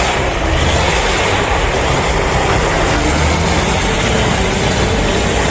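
Heavy vehicle's engine running hard under load, a loud steady rumble under dense noise, as the stuck machine works to move.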